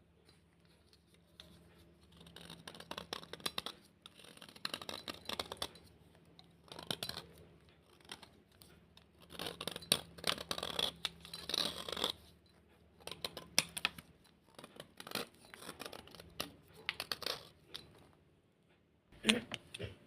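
A soft, crunchy black slate bar being scraped in a series of gritty strokes, in clusters lasting a second or two, with a louder sharp scrape near the end.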